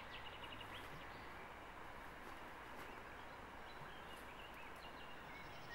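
Faint steady rushing of a river, with a few faint bird chirps over it.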